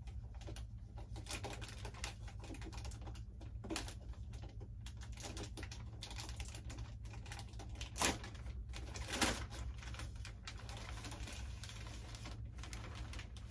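Clear plastic bag crinkling and crackling as it is handled on a model airplane fuselage, with irregular small crackles and two louder rustles about eight and nine seconds in.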